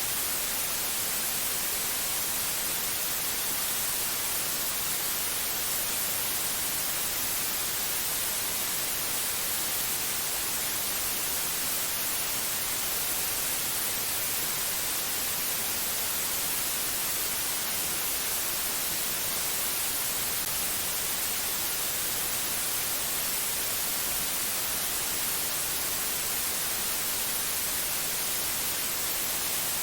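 Steady static hiss, even and unchanging, strongest in the high treble.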